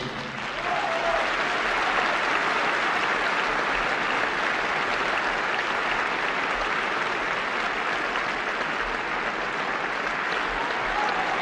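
Theatre audience applauding steadily as the ballet number ends.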